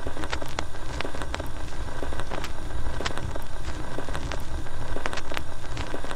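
Vinyl record surface noise: irregular crackles and pops over a low rumble.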